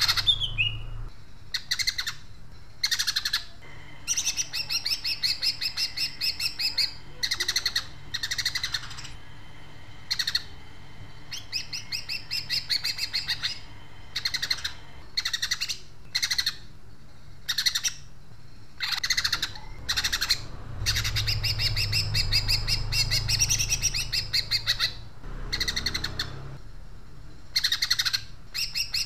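Caged cucak ijo (green leafbird) singing in repeated bouts of rapid, harsh chattering trills with short pauses between them, filled with mimicked sparrow chatter.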